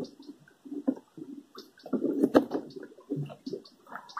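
Irregular splashing and handling noises as a freshly hooked peacock bass is landed and thrashes in the hand, with one sharper knock a little past the middle.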